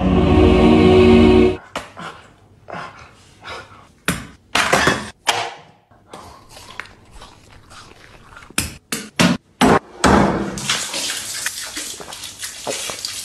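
A run of kitchen sounds. A loud steady hum opens it for about a second and a half. Then come scattered knocks and thuds of a knife cutting lemons on a wooden board. From about ten seconds in, a dense rushing splash of water takes over.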